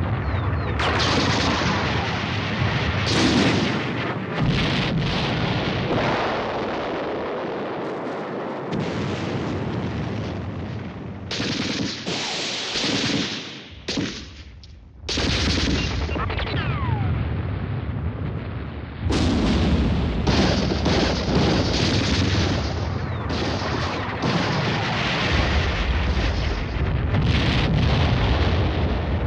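Battle sound effects: dense gunfire and explosions going almost without a break, with a short lull about halfway through.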